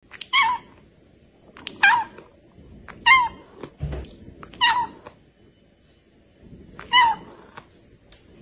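A cat meowing five times: short, high meows that each drop in pitch at the end, spaced one to two seconds apart.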